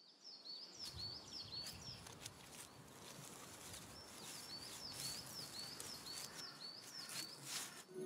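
Faint natural outdoor ambience with a small bird's high, repeated chirps, about three a second, and a few short rustles.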